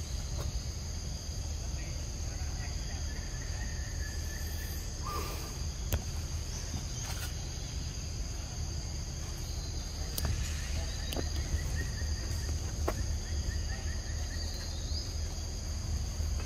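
Steady chorus of forest insects, two constant high-pitched tones running unbroken, with scattered faint clicks.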